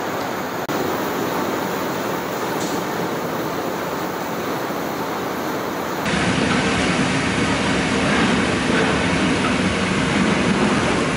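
Steady roar of a commercial high-pressure gas burner firing under a large kadai of oil, louder and fuller after a cut about six seconds in.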